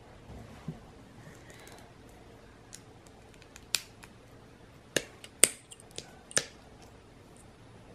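Hard plastic model-kit parts clicking as they are snapped together and nipped from the plastic runner with hobby nippers. A couple of faint clicks come first, then about five sharp clicks close together from about four seconds in.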